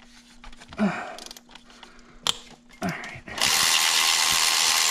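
Handheld power tool running steadily for a few seconds, starting about three and a half seconds in, while bolts are run out of the engine's intake. It follows a few light clicks and knocks of hand tools.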